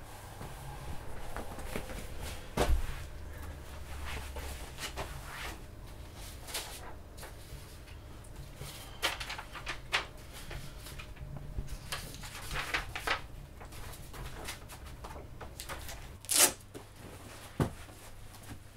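A person handling clothes and papers: rustling with scattered small knocks and clicks, and a few sharp thuds. The loudest thuds come about three seconds in and again near the end.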